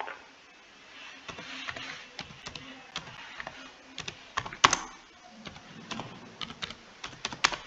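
Typing on a computer keyboard: irregular key clicks, with a louder strike a little past halfway and a cluster of louder ones near the end.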